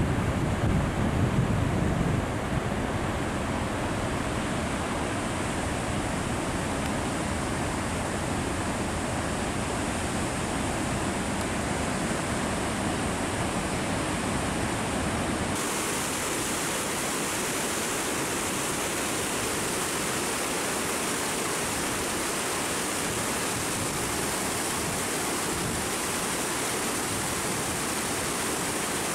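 Steady rushing outdoor noise of mountain running water mixed with wind, with a stronger low buffeting in the first couple of seconds. A little over halfway through, it changes abruptly to a thinner, hissier rush.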